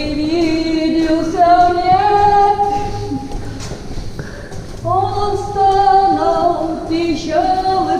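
Two voices singing long, wordless held notes together in a concrete underground tunnel, the pitches gliding up and down, with a quieter stretch in the middle. They are trying out how the tunnel resonates with low notes.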